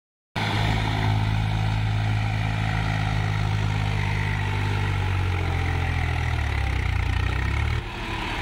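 Swaraj tractor's diesel engine running steadily under load as the tractor pushes through shallow water. Its note sinks a little in pitch over the last few seconds, then eases off suddenly near the end.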